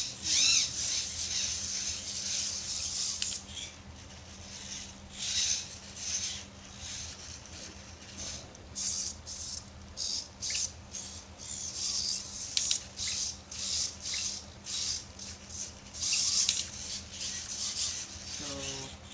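Hobby servo motors in an Arduino robot arm and hand whirring in short, irregular bursts as the fingers and joints follow a sensor glove, with a steady low hum underneath.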